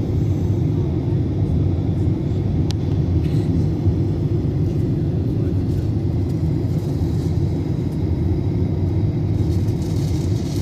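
Airliner cabin noise in flight: a steady low rumble of engines and airflow, with one small click a little under three seconds in.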